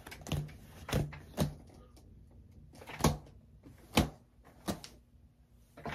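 About six short, sharp thuds and knocks, spread unevenly with quiet between them.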